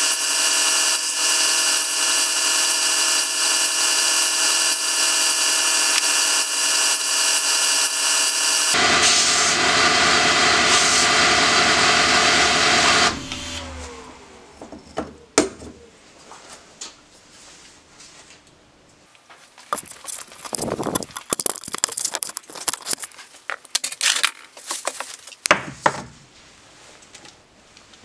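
Belt grinder running with a steady whine while a small wooden strop piece is ground on its abrasive belt; the sound shifts about nine seconds in. About thirteen seconds in the motor is switched off and spins down with a falling tone, followed by scattered handling clicks and bursts of rubbing and scraping.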